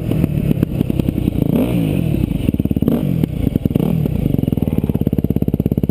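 Dirt bike engine, heard close up from the rider's helmet, revving up and easing off a few times as the bike slows, then settling into a steady idle with an even, rapid pulse about two-thirds of the way in.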